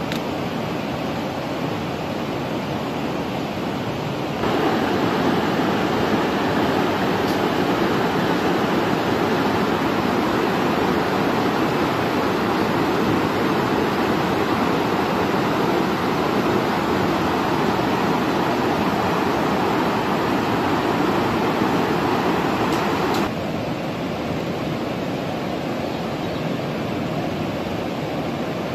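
Swollen, muddy river in flood, its water rushing steadily over rocks; the rush jumps louder about four seconds in and drops back to a quieter steady rushing about 23 seconds in.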